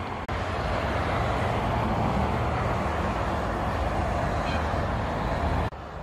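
Steady rush of road traffic: tyre and engine noise of cars passing on a busy road. It starts abruptly just after the start and cuts off suddenly near the end.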